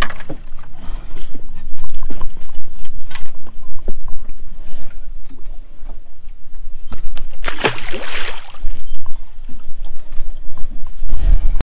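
Water sloshing around a small boat with handling knocks, and a louder splash about eight seconds in as a released amberjack goes into the water. The sound cuts off suddenly near the end.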